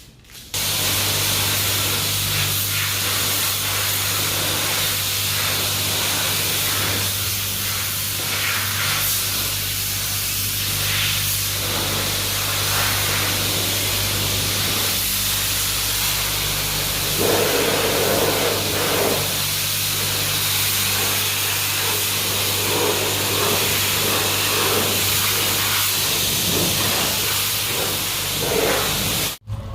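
High-pressure wash wand at a self-serve car wash spraying water: a steady hiss over a low hum. It starts suddenly about half a second in and cuts off just before the end.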